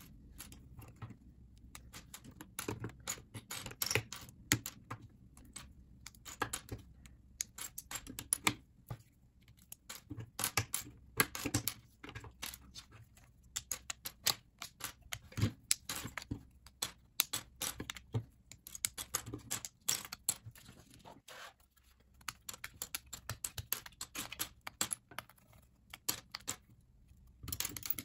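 LEGO plastic bricks being pulled apart by hand and with a brick separator, giving many sharp clicks and the clatter of loose pieces dropped onto a pile on a table, with a brief lull about three quarters of the way through.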